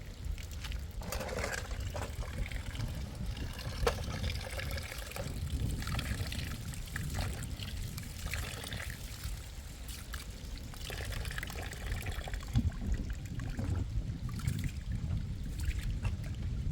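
Water pouring and trickling in spells of about a second, over a steady low rumble, with a few light clicks.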